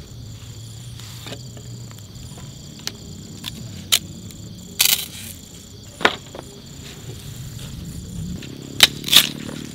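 Wood in a campfire cracking and popping: a handful of sharp cracks, two of the loudest close together near the end. Behind them runs a steady high chirring of night insects.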